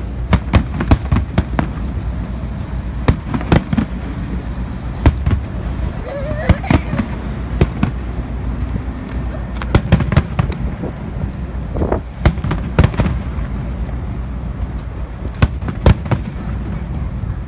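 Aerial firework shells bursting: an irregular run of sharp, loud bangs, several close together at times, over a steady low background rumble.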